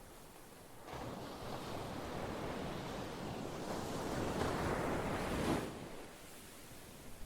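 Ocean surf: a wave rushes in about a second in, swells to its loudest, then falls away sharply near the end.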